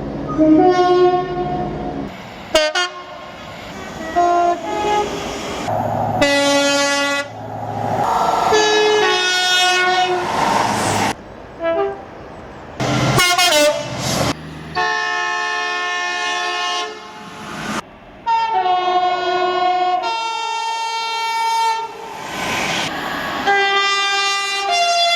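A string of train horn blasts from different locomotives and units, one after another with sudden changes between them, at several different pitches, some stepping between two notes. Train running noise sounds between some of the blasts.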